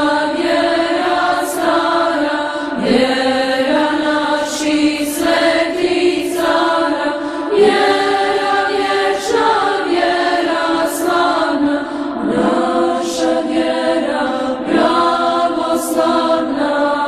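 Orthodox church chant sung by several voices in slow, sustained phrases, with a break for breath every two to three seconds.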